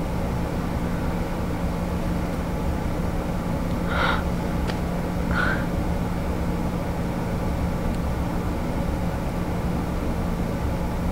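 Steady room tone: a low rumble with a constant low hum, and two short faint sounds about four and five and a half seconds in.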